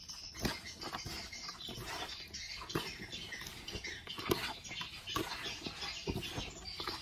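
Hand tossing and squeezing shredded cabbage, herbs and raw beef in a plastic basin: a wet rustling and crunching of leaves, broken by irregular soft knocks.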